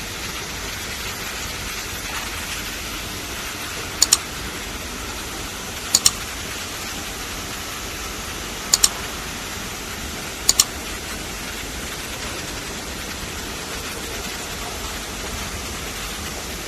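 Electric airport passenger buggy moving through a terminal: a steady rushing hum, with a short, high double beep sounding four times, every two to three seconds, to warn people in its path.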